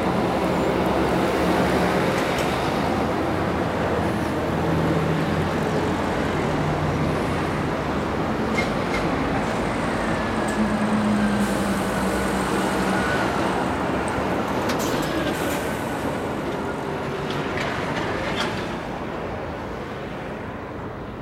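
Road traffic passing close by: a Volvo tractor-trailer carrying a container and a second heavy truck go by with diesel engine drone and tyre noise, among passing cars. A faint high whine drifts down in pitch in the middle, and the traffic noise fades near the end as the road empties.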